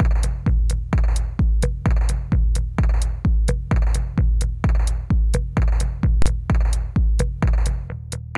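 Background music: an electronic track with a steady drum-machine beat, the kick drum hitting a little over twice a second with ticking hi-hats; the kick drops out just before the end.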